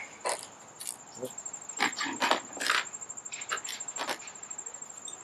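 Allen keys and small metal parts clinking and clicking as they are handled and sorted through in a hardware kit, a dozen or so sharp clinks. A cricket trills steadily and high-pitched in the background.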